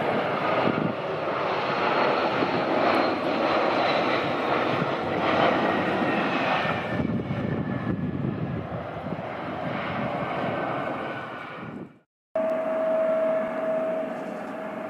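An Embraer regional jet's twin turbofan engines during the landing roll-out: loud engine roar with a whine that falls in pitch as the jet slows down the runway. After a brief cut near the end there is a steady, even engine whine as the jet taxis.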